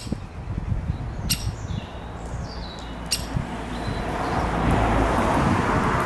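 Great spotted woodpecker nestling giving two sharp calls from the nest hole, with faint chirps between them. A broad rush of noise swells up over the last two seconds and becomes the loudest sound.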